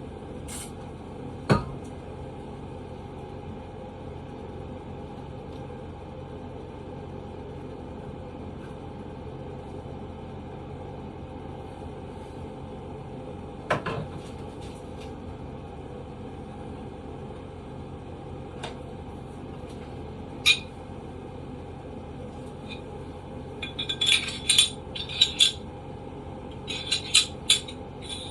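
Metal pistol parts clicking and clinking as a Glock 40 10mm is handled during cleaning: a few single clicks, then a quick run of sharp clicks near the end, over a steady background hum.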